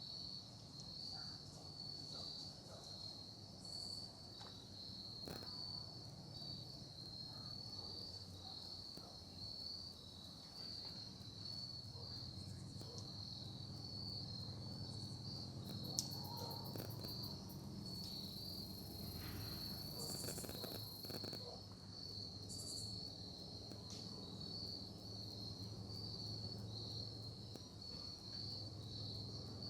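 Crickets chirping in a steady, rapidly pulsing chorus, over a faint low hum, with one sharp click about halfway through.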